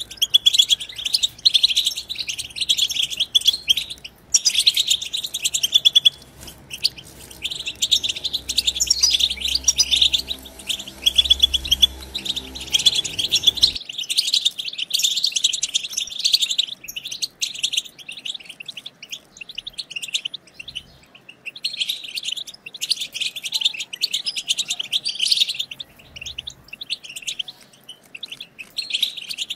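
A group of European goldfinches twittering: quick, high chirps run together in excited chattering phrases a few seconds long, broken by short pauses.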